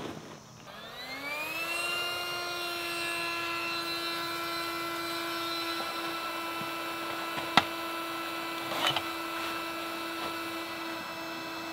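Naturehike portable electric air pump switching on and running, inflating an air tent: its motor spins up with a rising whine over about a second, then runs at a steady pitch. A single sharp click about seven and a half seconds in.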